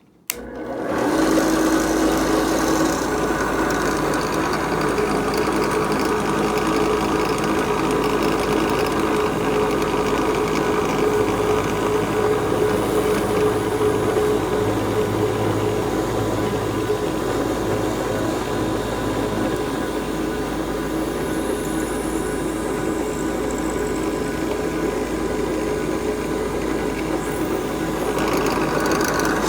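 Electric drill starting up and running steadily while it drills string holes through a wooden harp soundboard.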